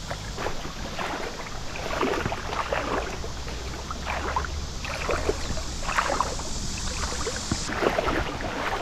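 Footsteps splashing irregularly through shallow river water as a kayak is waded and towed upstream on a strap.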